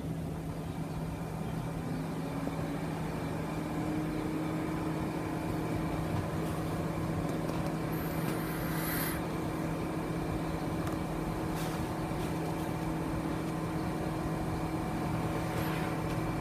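Tektronix 2467B oscilloscope running just after power-on: a steady hum, with its cooling fan's whir rising in pitch over the first few seconds as it spins up, then holding steady.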